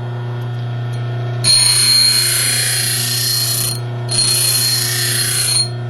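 A bench grinder's motor running steadily, with a steel hacksaw blade pressed against the spinning wheel in two grinding passes of about two seconds and a second and a half. Each pass is a loud hiss with a high whine, starting about a second and a half in, then pausing briefly before the second.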